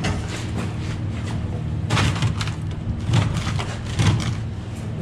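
An engine idling steadily, with several loud clunks about two, three and four seconds in.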